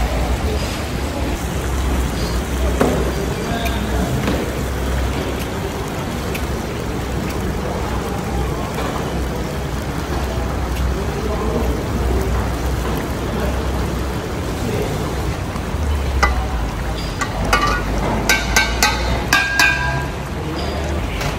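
Liquid cooking in a giant iron wok: a steady bubbling hiss over a low rumble, with a run of sharp metallic clinks a few seconds before the end.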